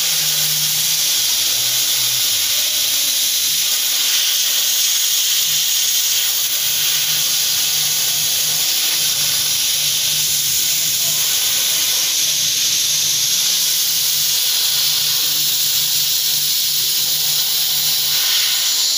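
Steady, loud hiss of assist gas blowing through the nozzle of a Z1325 laser cutting head as it cuts through acrylic sheet. A low hum comes and goes underneath.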